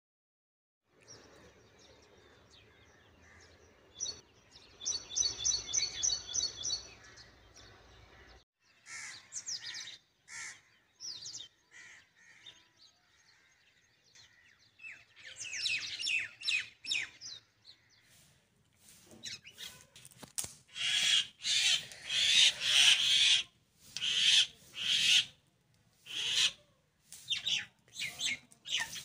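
Birds chirping and calling: a fast run of high chirps a few seconds in, then scattered calls, and sharper repeated calls that are loudest in the second half.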